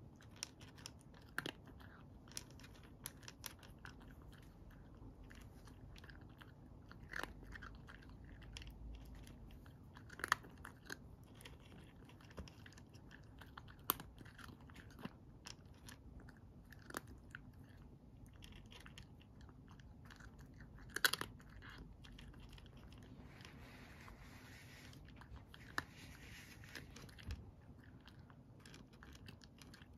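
A cat crunching dry kibble, irregular sharp crunches every second or so, one louder crunch about two-thirds of the way through.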